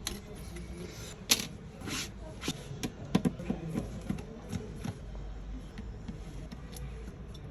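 Scattered sharp clicks and taps of small tools on a smartphone being taken apart, with faint voices behind.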